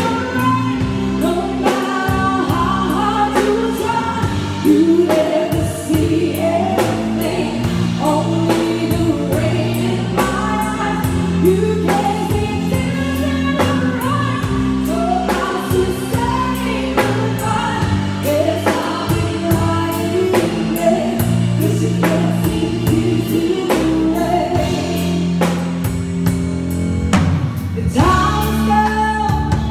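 A woman singing a pop-rock ballad live into a microphone, backed by a band with electric guitar and drum kit playing at a steady beat.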